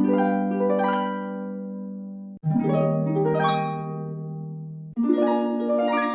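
Music: a short phrase of plucked-string arpeggios that ring and fade, repeated as a loop that cuts off sharply and restarts about every two and a half seconds, with no drums.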